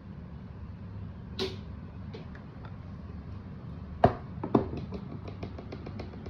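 Sharp clicks and knocks from hands-on work on a speaker, the loudest two about half a second apart, then a quick run of light, evenly spaced ticks at about seven a second, over a low steady hum.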